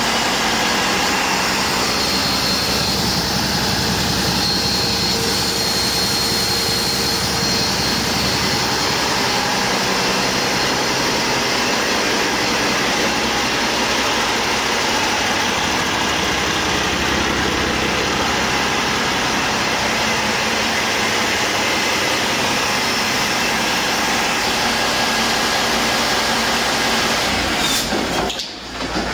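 A 2014 Cummins ISX15 15-litre inline-six diesel engine running steadily on a test stand, with a faint high whine over the diesel note. It is a used engine on its test run, which the seller says runs excellent.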